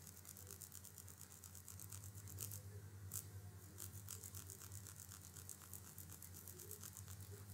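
Near silence: room tone with a faint steady low hum and a faint rapid crackle of ticks.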